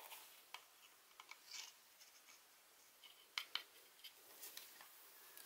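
Quiet handling sounds of an electric drill's painted housing and gear-end cover being fitted together by gloved hands: scattered light clicks and rubbing, with two sharper clicks in quick succession about three and a half seconds in.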